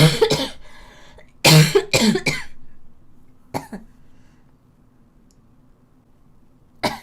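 A woman coughing in fits: a cough right at the start, a run of three coughs about a second and a half in, then a single cough a little past halfway and another at the very end. It is a lingering cough that has not been easing off.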